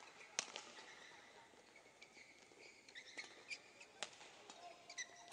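Badminton rally: sharp smacks of rackets striking the shuttlecock, the loudest a little under half a second in and about four seconds in. Between the hits come short high squeaks of court shoes on the floor.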